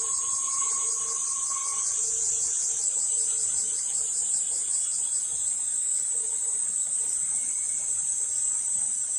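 Insects, crickets, chirping in a steady high-pitched chorus with a fine rapid pulse, and a thin faint tone in the first two seconds.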